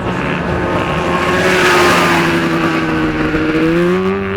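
Supermod racing lawnmowers with swapped-in high-revving sled and motorcycle engines running hard around the course, loudest as one passes about two seconds in. The engine note sags slightly and then climbs again near the end.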